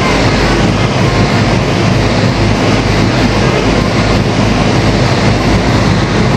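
Tour boat's engine running with a constant low hum under a loud, steady rushing noise of water and wind.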